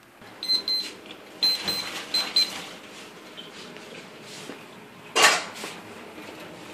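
Kitchen handling noises: a run of light clinks and knocks of dishes and utensils, some ringing briefly, over the first couple of seconds. A single short, loud rush of noise follows a little after five seconds in.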